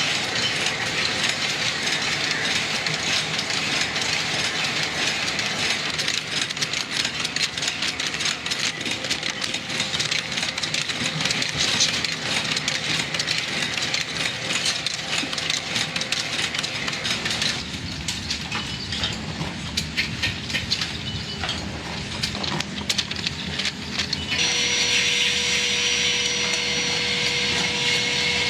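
Pencil-making machinery running, with a continuous dense clatter of wooden pieces and a rattling of mechanism. Near the end a steady high whine joins.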